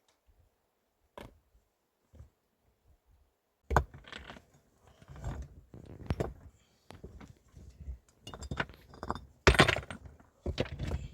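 Irregular knocks, clinks and scraping of hard objects being handled, beginning about four seconds in after a few scattered clicks, with the loudest clatter near the end.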